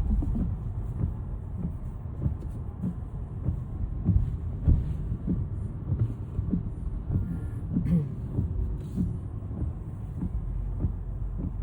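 Low, steady rumble of a car driving, with engine and road noise heard from inside the cabin.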